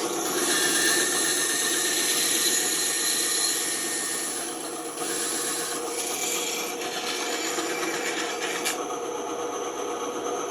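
Band saw running and cutting through wood, with a short letup in the cut about halfway through.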